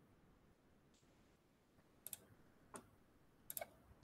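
Near silence, then a handful of faint, sharp clicks from about two seconds in, some coming in quick pairs.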